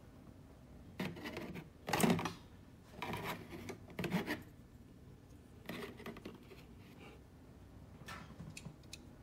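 Small plastic model-kit lion figures being picked up, set down and shifted by hand: a handful of short plastic clicks, scrapes and rubs at uneven intervals, the loudest about two seconds in.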